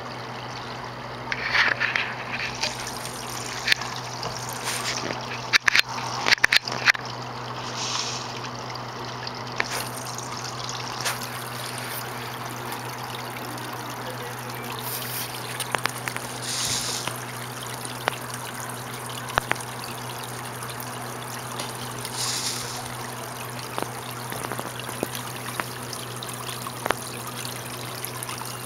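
Koi pond water trickling steadily, over a low steady hum, with sharp little splashes and slurps where koi break the surface, most of them clustered in the first seven seconds.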